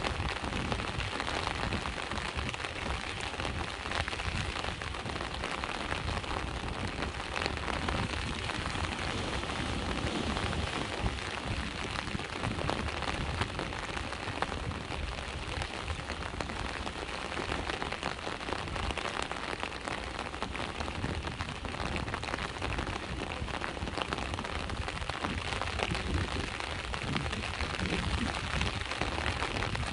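Steady rain falling, with many small drop ticks, over the low continuous wash of sea waves.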